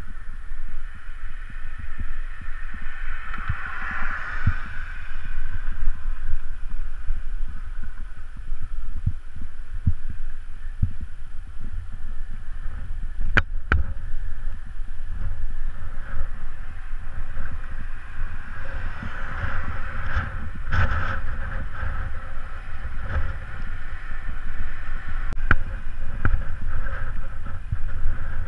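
Wind buffeting the microphone of a camera on a moving bicycle: a steady low rumble, with road noise swelling twice and a few sharp clicks or rattles.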